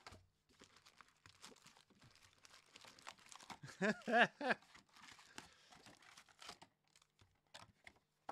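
Card-pack wrappers being torn open and crinkled in the hands, a run of short crinkling rustles. Around four seconds in, a brief hummed voice sound.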